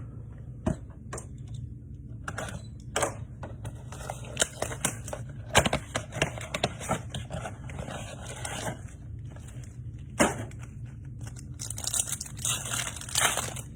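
Trading-card pack being torn open and its wrapper crinkled, with the cards handled and slid by hand: irregular rustles and sharp clicks.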